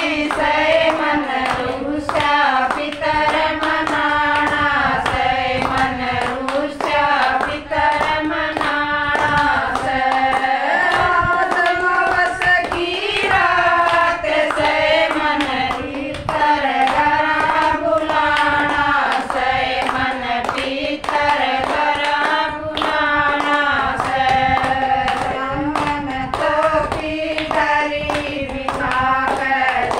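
Women singing a devotional bhajan to the ancestors (pitar), keeping time with steady hand claps.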